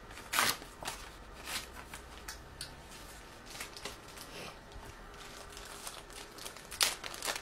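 A packet of D'Addario XS acoustic guitar strings being opened by hand: scattered crinkling and tearing of the packaging, loudest about half a second in and again near the end.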